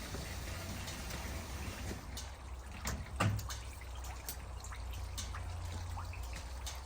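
Water trickling and dripping over a steady low hum, with scattered small clicks and one louder knock about three seconds in.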